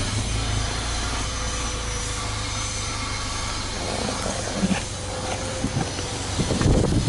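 Subaru Legacy 2.5GT's turbocharged EJ25 flat-four engine idling steadily after a rev, with a steady low rumble and a faint constant hum. A burst of uneven noise comes in near the end.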